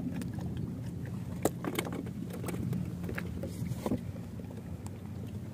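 Low steady hum around a small wooden fishing boat at sea, with scattered sharp clicks and knocks of fishing gear being handled in the boat, a cluster of them about a second and a half in.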